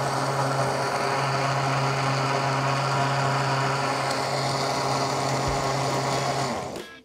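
KitchenAid countertop blender running at a steady speed, blending crushed ice, cream, liqueurs and crushed Oreo cookies into a smooth cocktail mix; the motor cuts off and winds down near the end.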